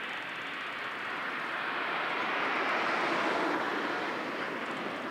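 A car driving past, its tyre and engine noise swelling to loudest about three seconds in and then fading.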